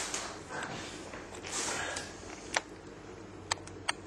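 Three short, sharp clicks, the last two close together, over quiet room noise. A soft rustle comes in the first two seconds.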